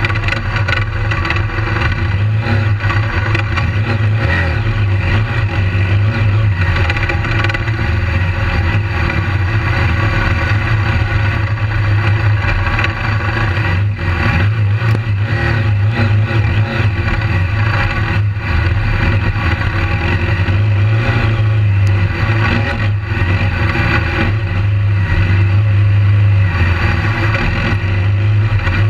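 BMW GS adventure motorcycle's engine running steadily under way on a dirt track, heard from a camera mounted on the bike as a loud, even low drone.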